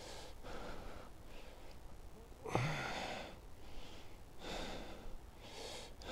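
A man breathing hard in short audible breaths while holding up a weigh sling with a carp of about 16 lb in it, with one louder breath about two and a half seconds in.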